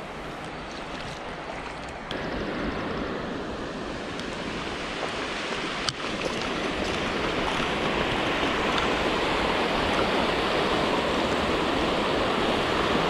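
River water rushing over a low concrete weir, a steady hiss that grows louder over the first several seconds. A single sharp tick about six seconds in.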